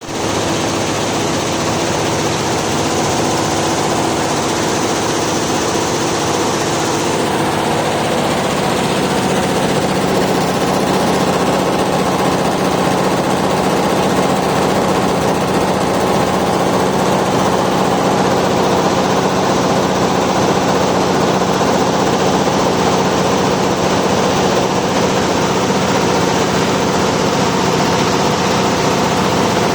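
Galaxy high-speed multi-head embroidery machine running, its needle heads stitching together in a fast, steady clatter. A high hiss drops away about seven seconds in.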